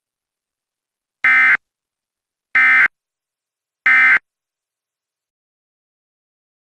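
Emergency Alert System end-of-message signal: three short, harsh digital data bursts, evenly spaced about a second apart, marking the end of the alert.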